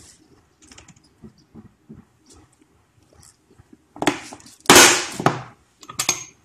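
Lever-operated graphic cutter pressed down, its blade punching through a sheet of printed photo paper in one loud crunch about four seconds in, followed by a few sharp clicks. Before it, faint paper rustling and handling ticks as the sheet is positioned.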